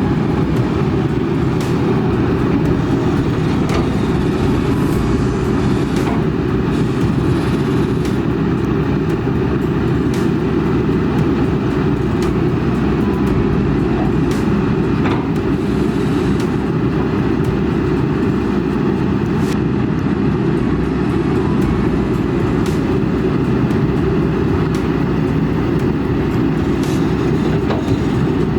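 Kobelco SK200 excavator's diesel engine running steadily as it works, a dense low rumble, with occasional faint clicks over it.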